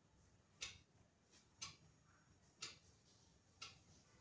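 Faint clock ticking, one tick a second, four ticks in all.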